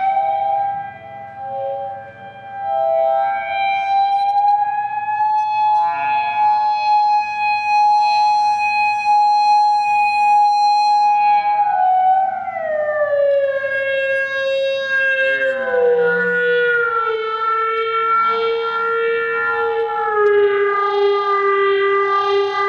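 Theremin playing a slow, wavering melody line. One high note is held for over ten seconds, then the pitch slides down in steps to lower notes through the second half.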